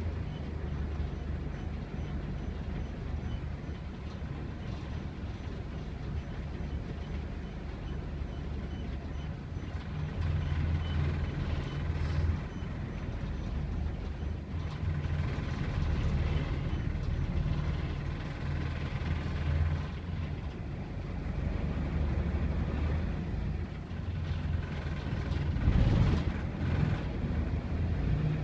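Diesel engine of Badgerline bus J858 FTC (fleet number 3858), heard from inside the passenger saloon as a steady low drone. It grows louder in spells, about ten seconds in, again around sixteen seconds and most strongly near the end, as the bus pulls under power.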